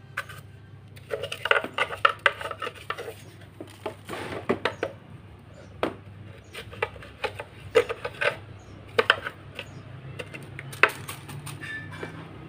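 A paintbrush scrubbing and tapping inside a clear plastic vacuum cleaner dust bin, with the plastic bin clacking as it is handled: irregular scrapes and light knocks in several bunches. The dust is being cleared from a vacuum that runs but no longer sucks.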